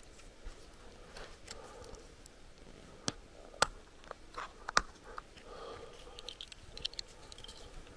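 Sparse light clicks and knocks of a mug and coffee things being handled, with a soft rustle and small ticks about six seconds in.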